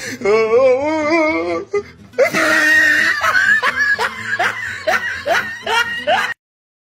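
Dubbed-in laughter track over music. A wavering, sung-sounding tone for about the first two seconds gives way to repeated bursts of laughing over a noisy background, which cut off suddenly to silence near the end.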